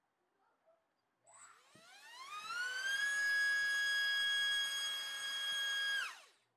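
BrotherHobby Tornado T1 2205-2500KV brushless motor driving a DYS 4040 three-blade propeller on a thrust stand: a whine that rises as it spools up about a second in, holds steady at full throttle for about three seconds, then drops away quickly as the throttle is cut near the end.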